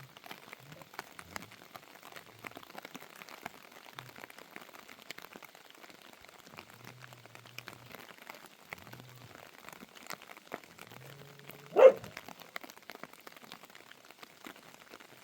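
A dog gives a single short bark about three-quarters of the way through, over a steady patter of faint ticks and drips.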